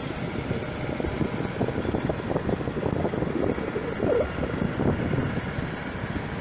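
Wind buffeting the microphone in uneven low gusts over the steady wash of surf breaking on the beach.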